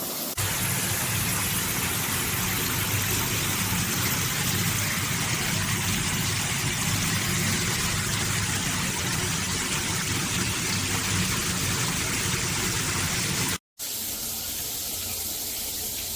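Shower head spraying water in a steady rush, broken off by a brief dropout near the end.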